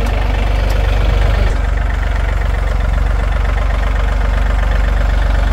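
A large engine idling close by, with a steady low drone and an even pulse; its tone shifts slightly about a second and a half in.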